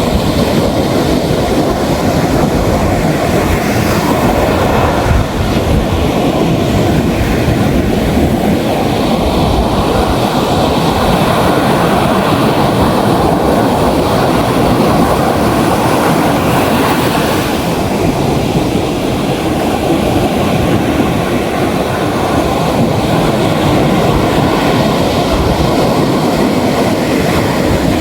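Ocean surf breaking on a beach: a steady, loud wash of surf noise with a heavy low rumble and no clear rhythm.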